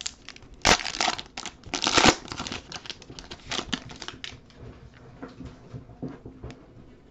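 Foil wrapper of a Panini Prizm baseball card pack being torn open and crinkled. The loudest rips come about one and two seconds in, followed by quieter rustling as the stack of cards is slid out and handled.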